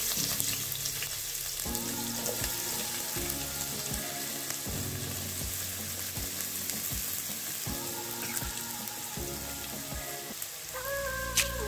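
Chopped onions sizzling as they fry in hot coconut oil, a steady crackling hiss. Background music plays underneath and gets clearer near the end.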